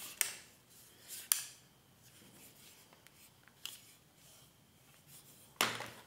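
A handful of light clicks and knocks, spread out and short, as a hair flat iron is handled and set down into its fabric-lined case.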